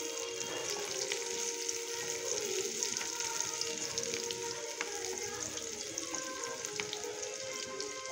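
Sliced onions sizzling in hot oil in a non-stick frying pan, a steady hiss, with a few light scrapes of the spatula as they are stirred. Background music plays under it.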